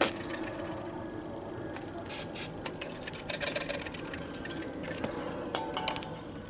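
Clicks, knocks and scraping from hand work on a car's in-tank fuel pump and filter assembly as parts are handled and pulled apart, with a couple of short hissing noises about two seconds in.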